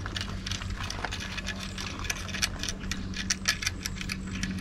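Small metal parts clicking and clinking in the hands, many light irregular clicks as an LED work light and its mounting hardware are fitted into place, over a steady low hum.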